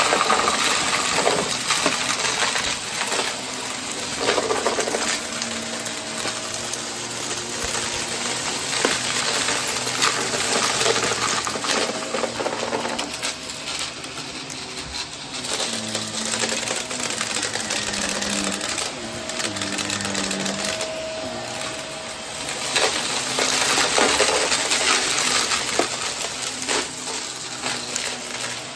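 Close-miked ASMR trigger sounds: a dense, continuous run of small clicks, taps and clinks on hard objects.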